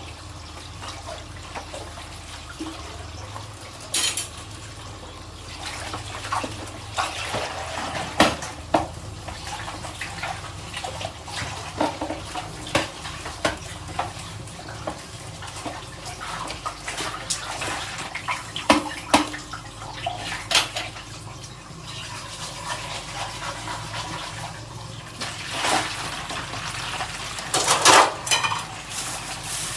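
Dishes being washed by hand at a sink: plates and cutlery clinking against each other over steady running tap water, with a louder burst of clatter and water near the end.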